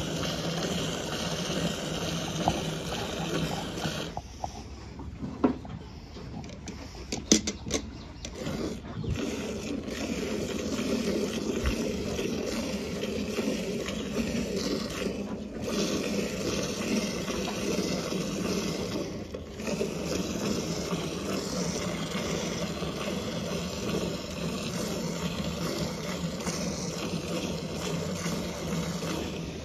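Milk squirting from a hand-milked sheep's teats into a steel bucket already holding frothy milk: a steady splashing hiss. A few sharp knocks stand out between about five and nine seconds in.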